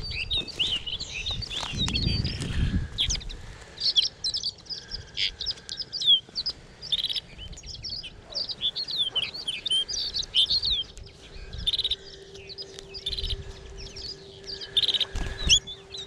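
European goldfinches twittering: a continuous run of quick, high chirps and short calls. Wind rumbles on the microphone for the first couple of seconds.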